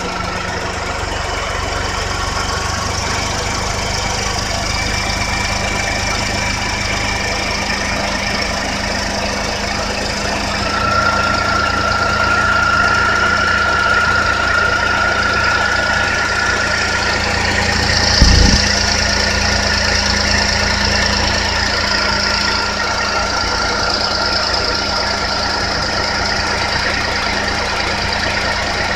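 Honda JB1 engine idling, joined about ten seconds in by a steady high-pitched whine from its rebuilt replacement alternator; the owner believes the alternator makes the noise and suspects a defective unit. A single thump sounds about eighteen seconds in.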